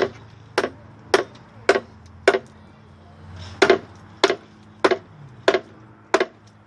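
A hand tool chopping into wood in a steady rhythm, about ten sharp strikes a little over half a second apart, with a pause of about a second partway through.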